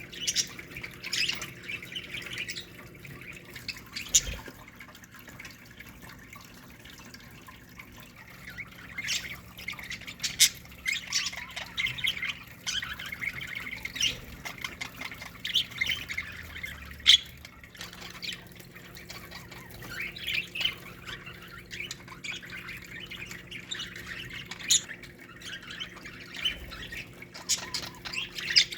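A colony of budgerigars chattering, chirping and squawking in busy bursts with short quieter stretches. A brief low thump comes about four seconds in, over a faint steady hum.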